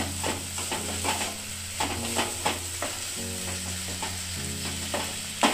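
Wooden spatula stirring and scraping a thick potato, carrot and pea filling around a kadai, in a run of short scrapes against the pan a few tenths of a second apart. A low frying sizzle runs under the scrapes as the filling is dry-fried without water until it dries out.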